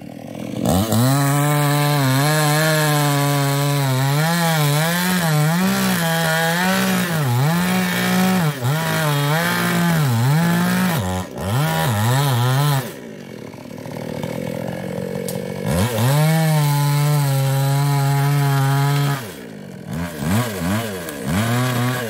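Small New West two-stroke chainsaw cutting into a sengon tree trunk, its engine pitch wavering up and down as the chain bites and bogs under load. About halfway through it drops back to a lower, quieter running for a few seconds, then holds steady high revs again before easing off near the end.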